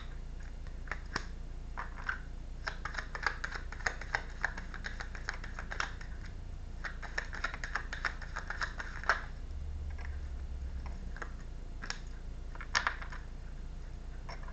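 Tarot cards being handled: a run of quick light clicks and taps, bunched into two dense flurries, with a couple of sharper taps near the end.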